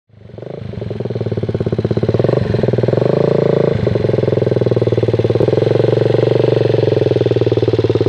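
Small motor vehicle engine running with a fast, even firing pulse, fading in at the start and stepping up in pitch about two seconds in and again near four seconds as the throttle is opened.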